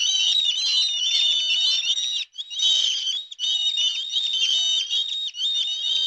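A crowd of baby chicks peeping together, many high, shrill overlapping peeps, with brief lulls a couple of seconds and three and a half seconds in; it cuts off abruptly at the end.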